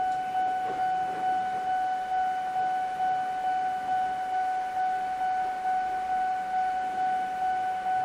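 Japanese level-crossing electronic warning bell on the Eizan Electric Railway, sounding one high tone over and over, a little under two strokes a second: the crossing's warning that a train is approaching.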